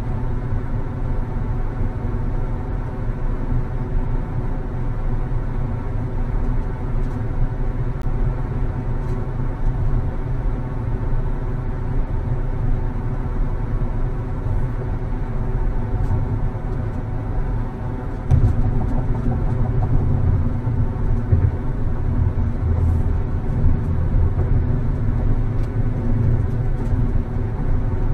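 Steady road and tyre noise with engine rumble inside a car cruising at about 60 mph on a highway. The low rumble grows louder and rougher about two-thirds of the way through.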